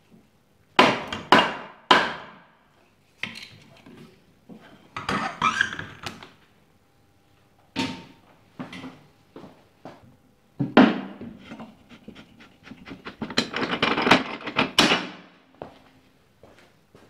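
Workshop knocks and clanks of hand tools and metal motorcycle parts being handled, coming in irregular clusters. The busiest run of quick knocks comes from about thirteen to fifteen seconds in.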